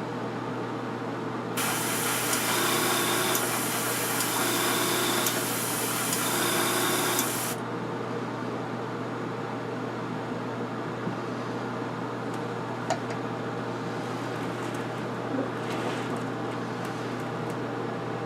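Flat yellow model paint being sprayed: a steady hiss that starts about a second and a half in and stops about seven and a half seconds in. A steady low hum runs underneath, with a few faint clicks later on.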